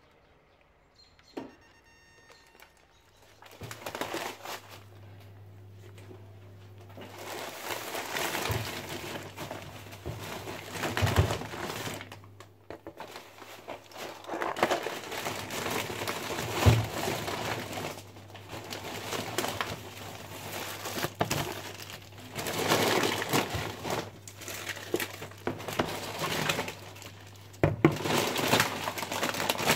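Plastic shopping bags crinkling and rustling in spells as groceries are unpacked, with a few sharp knocks as items are set down on a kitchen counter, over a low steady hum.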